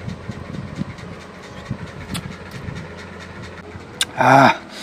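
A man chewing a mouthful of rice and fish, with soft mouth clicks over a low steady hum. Near the end comes a short, loud vocal exclamation, a reaction to the food being very spicy.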